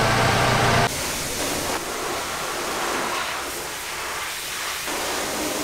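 Water spraying with a steady hissing rush, rinsing mud from a 4x4's underbody. For about the first second a vehicle engine idles under it, then it drops off abruptly.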